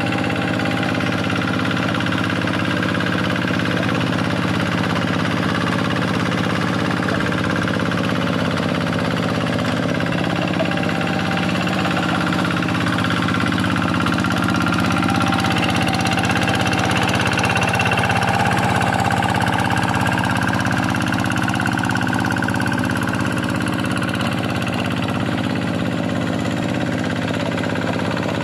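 Kubota single-cylinder diesel engine of a Quick G1000 hand tractor running steadily while ploughing a flooded rice field, a little louder about halfway through.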